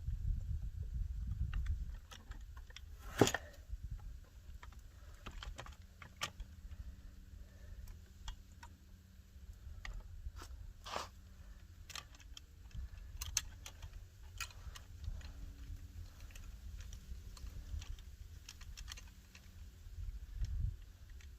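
Metal chainsaw parts being handled while the bar and chain are fitted: scattered light clicks and rattles, with a sharp click about three seconds in and another a little past ten seconds.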